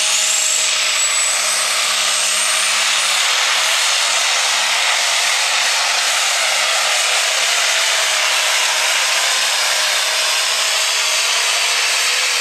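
Turbocharged diesel engine of a Case International light pro stock pulling tractor running flat out under load as it drags the weight sled, a steady loud engine noise. A high turbo whistle rises over the first few seconds.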